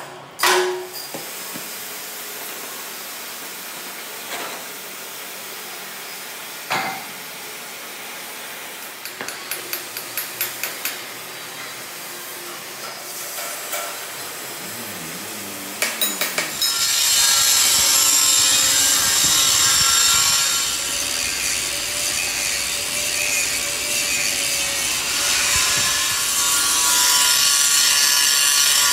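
A power tool working metal. The first half has scattered knocks and a quick run of light ticks, about four a second. From about halfway a loud steady cutting or grinding sound begins, with a held whine in it.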